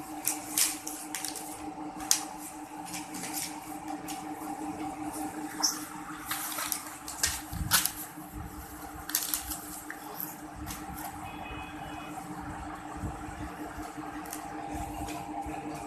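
Sheets of paper rustling and crinkling in short, irregular bursts as a baby handles and crumples them, over a steady electrical hum.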